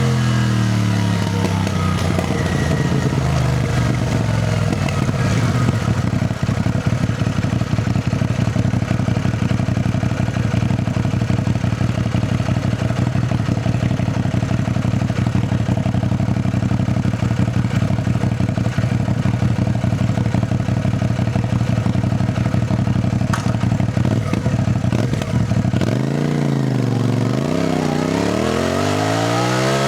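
CFMoto 450NK parallel-twin motorcycle engine, heard from the bike. The revs drop at first, then hold steady at cruising speed under a steady rush of wind noise. Near the end it accelerates through gear changes, the engine note rising and dipping with each shift.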